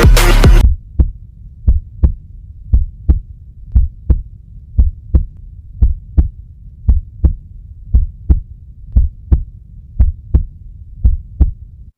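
Heartbeat: low thumps in an even rhythm, about three a second, over a faint steady low hum. Music cuts off just before it begins.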